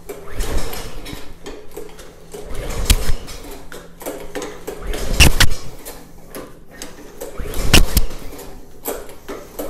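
Recoil pull-starter being yanked on a walk-behind mower's Tecumseh VLV55 engine, four pulls about two and a half seconds apart, each spinning the engine over without it starting. The owner blames the failure on air leaking in through an unseen flaw in the carburetor.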